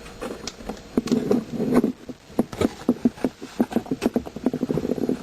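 Rapid clicking and rattling of packages and containers being handled and shuffled in a kitchen cabinet. The taps come faster from a little past halfway.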